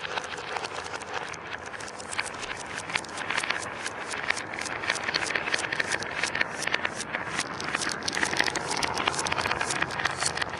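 Marbles rolling and clattering along a marble run track: a dense, steady stream of quick clicks over a continuous rolling rumble.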